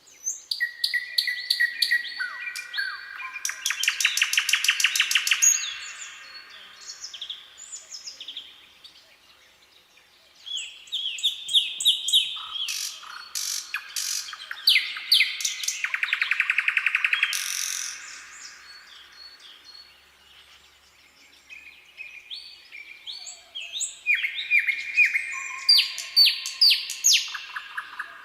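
Nightingale singing in three long bouts with short pauses between them, mixing pure whistled notes with fast trills of rapidly repeated notes.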